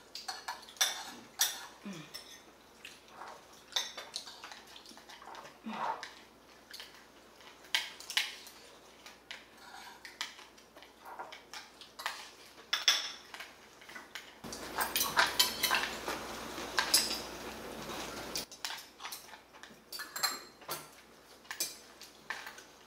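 Metal spoon and chopsticks clinking and scraping against a ceramic bowl and plates while a boy eats, in scattered sharp clicks. About two-thirds of the way through, a steady hiss comes in for about four seconds.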